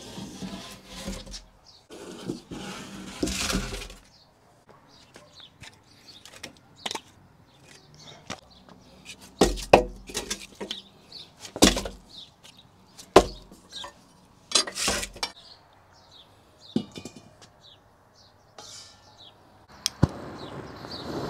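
Firewood logs knocking and clattering as they are handled and stacked inside a wood-fired oven, with several sharp wooden knocks a second or two apart. Near the end a handheld gas torch lights with a click and starts a steady hiss.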